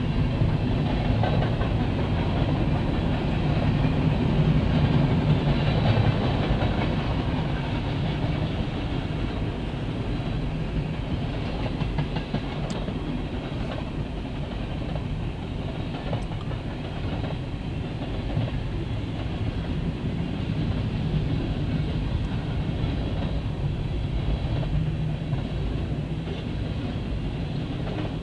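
Freight train cars rolling past at steady speed, a continuous rumble of steel wheels on the rails with occasional faint clicks.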